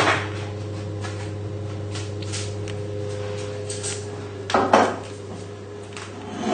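Cookware being handled on a kitchen counter and hob: a sharp knock right at the start and a louder clatter about four and a half seconds in, over a steady low hum.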